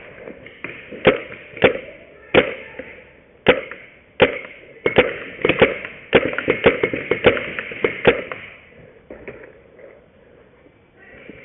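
Paintball markers firing: sharp single cracks spaced a second or so apart, then a fast irregular string of shots for about three seconds, thinning out near the end.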